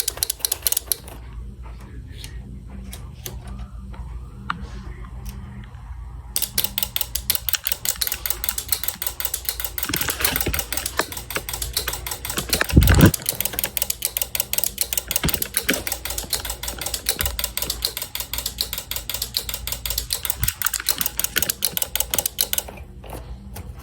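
A fast, even run of mechanical clicks that starts about six seconds in and stops about a second before the end, with a short burst at the very start and one loud low thump about thirteen seconds in, over a steady low hum.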